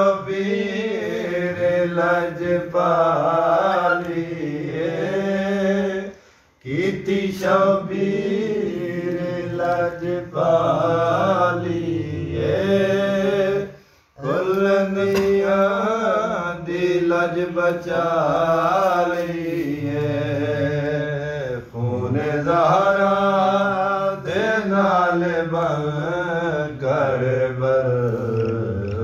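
A man's unaccompanied voice reciting a noha, a mournful Shia lament, in long drawn-out melodic lines. He pauses for breath about six seconds in and again near the middle.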